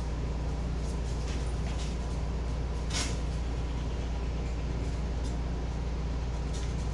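Steady low hum, like a motor or fan running, with a few faint ticks and one sharper click about three seconds in.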